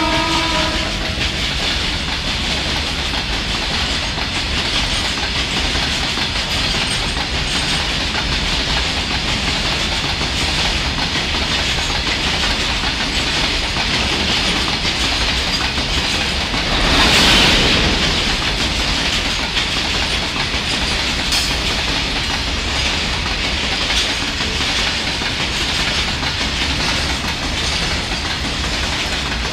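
Long freight train of open-top wagons running through at high speed, a steady rumble of wheels on the rails, with the last of the WAG-9 electric locomotive's horn cutting off in the first second. The rush swells briefly about halfway through.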